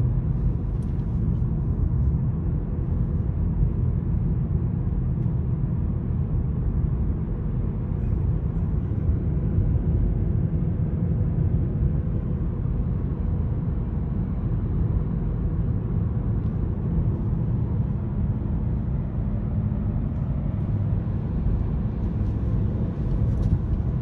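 Steady road and tyre noise with engine hum inside a Honda Civic's cabin at highway speed.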